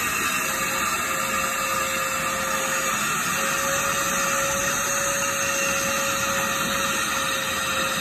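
Parkside PNTSA 20 Li A1 cordless 20 V wet and dry vacuum running steadily while its floor nozzle sucks water off plastic sheeting: an even rush of air with a constant motor whine.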